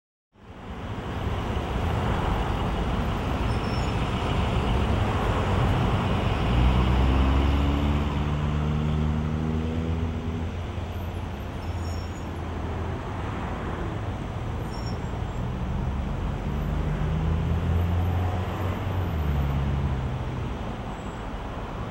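Road traffic noise, a steady hiss of passing vehicles, with a heavy vehicle's engine droning low about six seconds in and again near the end.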